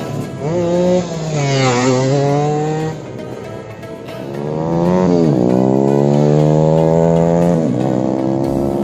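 Race-tuned Honda Supra motorcycle, bored up to 150cc, its four-stroke single-cylinder engine running hard. Its pitch drops and climbs again about two seconds in and about five seconds in, then holds high before dipping once more near the end.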